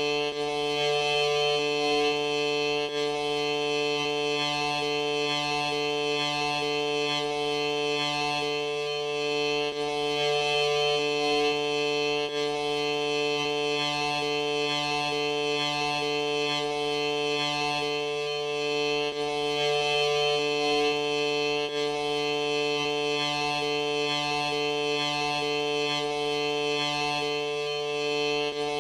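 A sneeze stretched out into a steady, unchanging drone of stacked held tones that sounds like music. One of the lower tones drops out briefly about every nine seconds.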